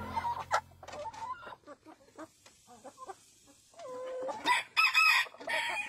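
A flock of chickens clucking with short scattered calls, then one drawn-out call about four seconds in and a run of louder calls near the end.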